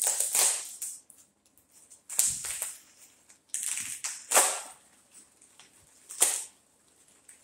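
Packing material being handled during an unboxing, rustling and crinkling in four short bursts, the last one sharp and brief.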